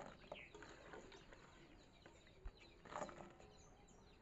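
Faint clicks and knocks of wet dried jujubes (kul) being turned over by hand in a steel bowl as they are washed, with faint bird chirps behind.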